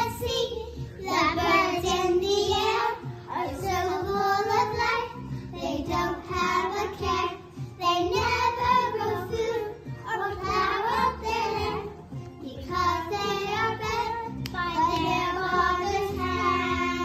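A group of young children singing a song together, in short sung phrases with brief pauses for breath.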